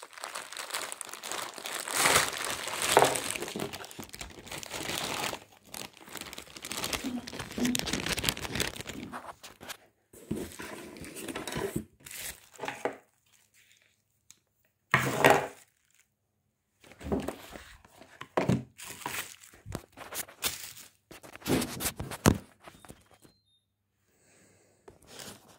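Bubble wrap and a plastic bag crinkling and rustling as they are handled and pulled apart. It runs almost without a break for about the first half, then comes in short separate bursts with brief silences between them.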